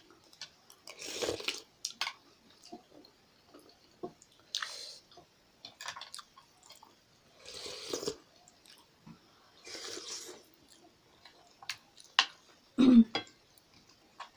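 Close-miked chewing and wet mouth sounds of a person eating soupy momo dumplings, with soft clicks and several short noisy bursts every few seconds. A louder low bump comes near the end.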